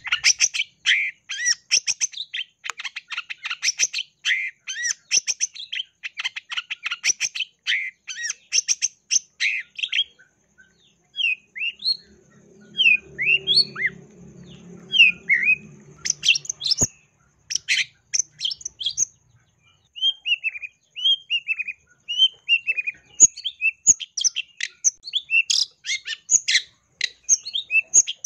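Long-tailed shrike (cendet) in full song: long runs of rapid, harsh chattering notes, then a short pause about ten seconds in, then separate rising and falling whistled notes. Rapid chatter returns near the end. A faint low rumble sits under the whistles in the middle.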